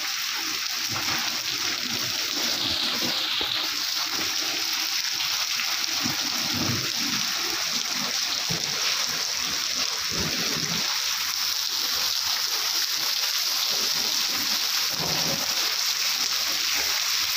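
Heavy rain pouring and splashing steadily.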